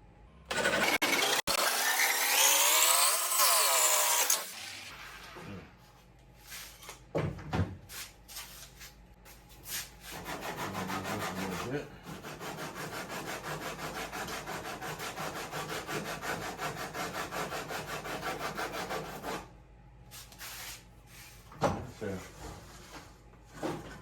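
A small piece of wood being cut with a hand saw: a long run of fast, even strokes lasting about nine seconds in the middle. Near the start comes a loud, hissing whir for about four seconds, its pitch rising and falling, with scattered knocks before the sawing.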